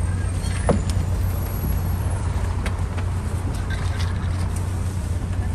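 Open-top double-decker tour bus's engine running steadily as a low rumble under the top deck, with a few short knocks and clicks.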